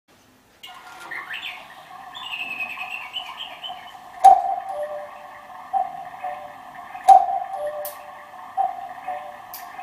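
Quartz cuckoo clock sounding its electronic two-note cuckoo call, each loud call followed by a softer echo call, about one call every second and a half from about four seconds in. Before the calls come high, bird-like chirps.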